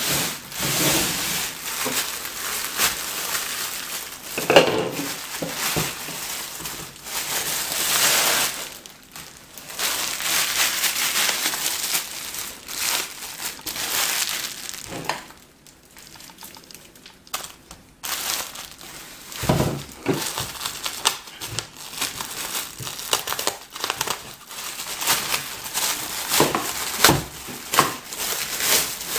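Bubble wrap and plastic packing sheet crinkling and rustling in irregular bursts as it is pulled away by hand, easing off briefly past the middle. There is a single dull knock about two-thirds of the way through.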